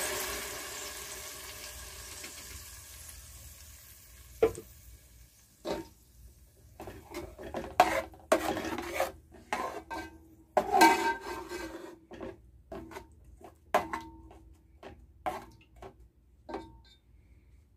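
Wet ground masala paste sizzling as it hits hot oil and fried onions in an aluminium pot, the sizzle fading over the first few seconds. Then a metal spoon stirring the paste, with repeated short clinks and scrapes against the pot that stop near the end.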